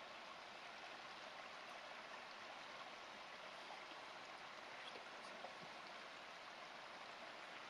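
Faint, steady rushing background noise with a few tiny ticks.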